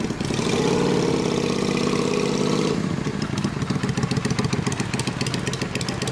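Kawasaki Vulcan 400 Classic's V-twin engine, fitted with an aftermarket muffler, revving as the motorcycle pulls away. About three seconds in it settles into a lower, fast pulsing beat from the exhaust.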